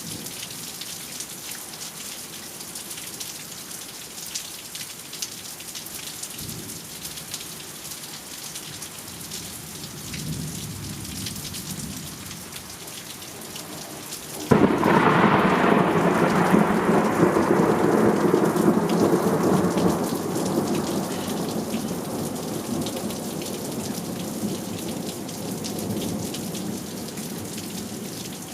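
Steady rain falling throughout, with a faint low rumble of thunder a few seconds before the middle. About halfway through comes a sudden loud crack of thunder that rolls on for several seconds and slowly fades.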